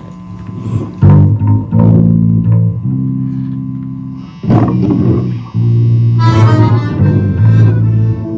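Instrumental intro from a small band of bass, guitar, accordion and drums, without singing. A few held chords ring out and fade during the first four seconds, then the full band comes in louder about four and a half seconds in.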